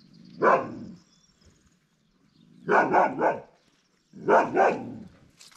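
A farm dog barking: a single bark, then a run of three quick barks, then two more. It is an alert barking, which the owner takes to be at a strange dog it has spotted on a distant hilltop.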